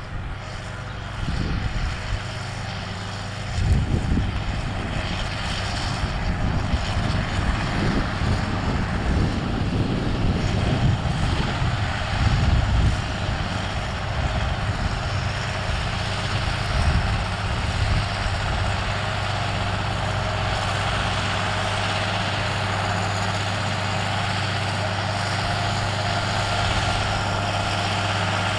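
John Deere 6920 tractor's six-cylinder diesel engine running under load as it pulls a harrow through the soil and draws nearer. The engine note is uneven at first and settles into a steady drone over the second half.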